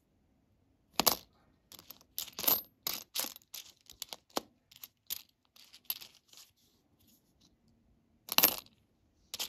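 Nickels clicking and clinking against one another as they are handled and fanned out: a string of short, sharp metallic clicks, with louder ringing clinks about a second in and near the end.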